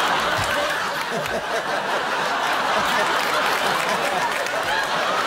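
Studio audience laughing steadily throughout.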